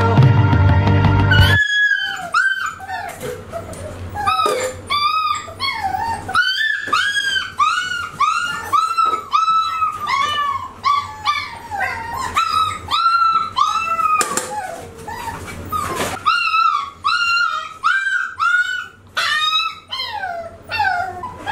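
Music for about the first second and a half, then six-week-old American Bully puppies whining and yelping in a steady string of short, high, arching cries, about two a second, with a brief lull about two-thirds of the way through.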